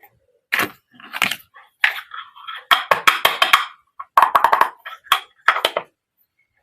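Small toy kitchen pieces being handled, clicking and clacking against each other in a string of short knocks, with a quick flurry of clicks near the middle.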